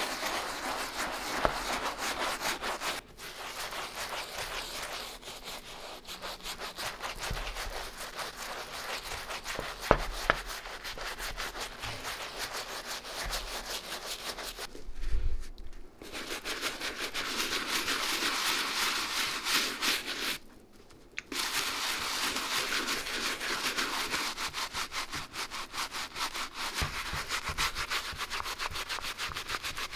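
A cleaning brush scrubbing a sneaker in rapid back-and-forth strokes. It stops briefly about three seconds in and again around fifteen and twenty seconds.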